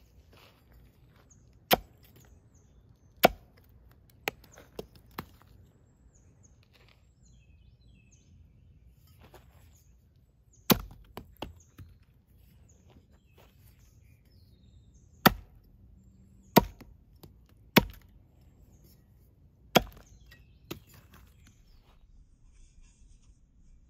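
Steel tomahawk blade forged from a wrench chopping into a wooden stump: about a dozen sharp, separate strikes at irregular intervals, some in quick runs of two or three.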